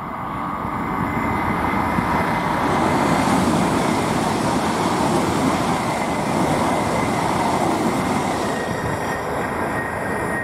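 High-speed train passing at speed on a high-speed line: a steady rushing noise that swells over the first few seconds, holds, and eases slightly near the end.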